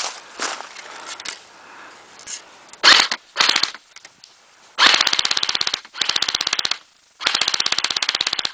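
Airsoft gun firing on full auto in five bursts of rapid sharp shots, about twenty a second: two short bursts about three seconds in, then three longer bursts of up to about a second each.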